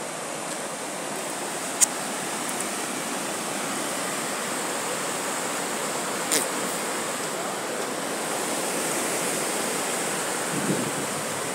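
Waterfall and rocky stream cascade rushing steadily, with two sharp clicks about two and six seconds in.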